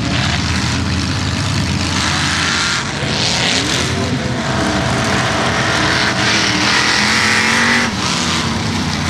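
Engines of lifted 4x4 mud-bog trucks running and revving across a field, the engine note rising and falling as the trucks accelerate.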